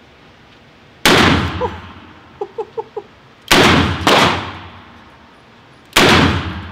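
Smith & Wesson 500 Magnum revolver fired in an indoor range: very loud shots, each ringing out in the room's echo. Four reports: one about a second in, two close together in the middle, and one near the end.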